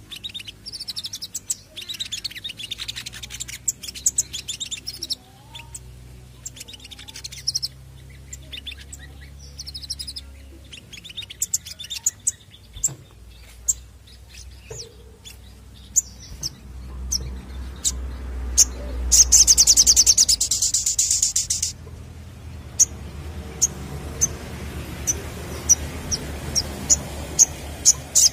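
Male olive-backed sunbird singing: fast, high chirps and trills, loudest in a rapid trill about two-thirds of the way in, then a run of single sharp chips spaced about a second apart.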